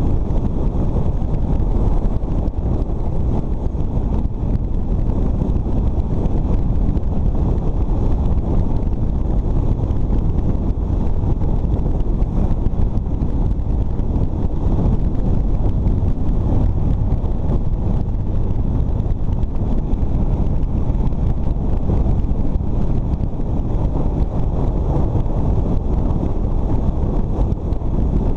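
Steady wind rush buffeting the microphone of a camera mounted on a moving motorcycle, with the bike's engine and tyre noise underneath at a constant road speed.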